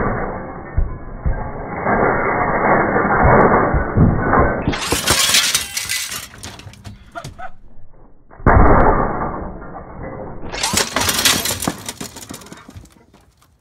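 A dumbbell crashing onto a large framed picture and its glass shattering and tinkling onto concrete, heard twice. Each time the impact starts low and muffled, as in slowed-down slow-motion playback, then turns into bright crackling and clinking of glass shards.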